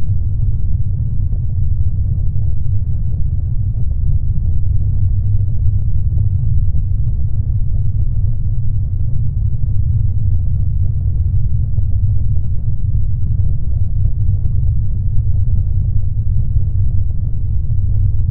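Steady deep rumble of a ship, unchanging in level, with most of its weight in the bass.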